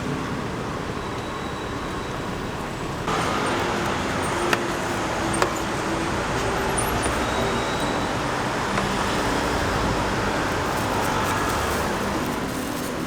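Steady street traffic noise that gets louder suddenly about three seconds in, with two sharp clicks soon after.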